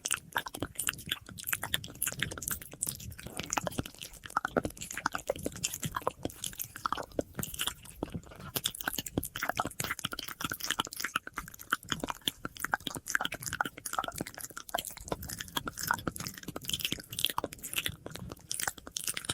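ASMR mouth sounds: a dense, irregular stream of wet clicks, smacks and pops made close to the microphone, with an echo effect on the audio.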